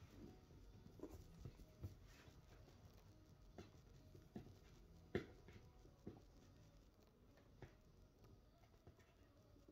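Near silence with faint, scattered scratches and clicks of fingers picking at tape on a cardboard product box; the sharpest click comes about five seconds in.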